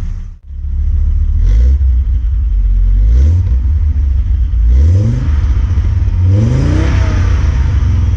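Audi Coupe's 2.2-litre five-cylinder engine running and revved four times, each rev a quick rise in pitch, the last one the longest.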